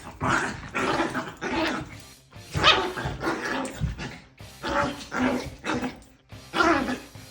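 Small dog vocalising in short repeated barks and grumbling growls, about one or two a second.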